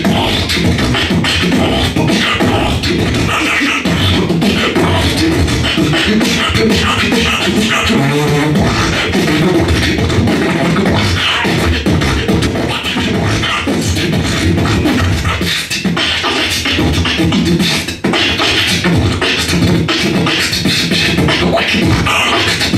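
Solo beatboxing amplified through a microphone and PA: a dense, unbroken run of vocal percussion, with a brief dip about 18 seconds in.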